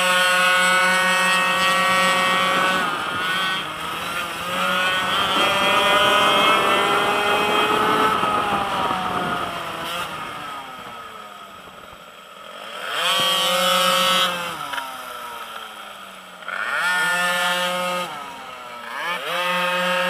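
Small two-stroke pocket-bike engine (a Blata-replica minimoto) revving high on a racing lap. Its pitch drops off into each corner and screams back up as the throttle opens, several times over.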